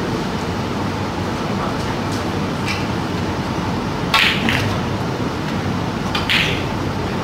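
Snooker cue tip striking the cue ball about four seconds in, followed half a second later by the sharp click of the cue ball splitting the pack of reds, and one more ball click about two seconds after that. A steady room hum runs underneath.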